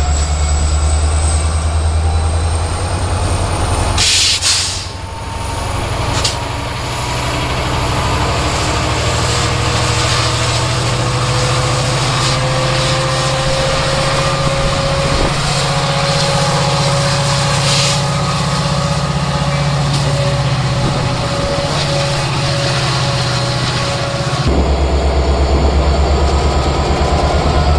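Metra MP36PH-3S diesel-electric passenger locomotive pulling away close by: steady engine running with a whine that slowly rises in pitch as it picks up speed, and a brief sharp hiss of air about four seconds in. About three seconds before the end, a second locomotive's louder, deeper engine takes over as it runs right past.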